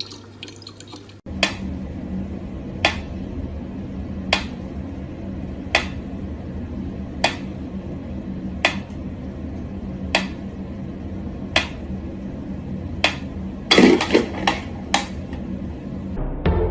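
Sharp clicks or taps evenly spaced about a second and a half apart over a steady low hum, with a quick flurry of several clicks near the end.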